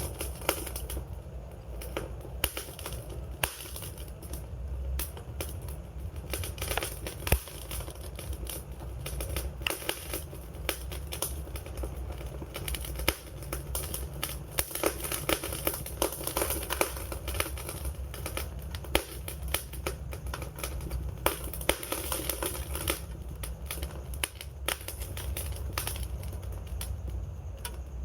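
Wood fire crackling: dense, irregular pops and snaps over a steady low rumble.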